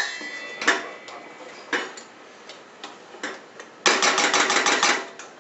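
Thick polenta bubbling in a stainless-steel pot: its steel lid is lifted with a ringing clink, then the polenta gives scattered sharp pops as it spatters. About four seconds in comes a second of rapid metallic clatter at the pot.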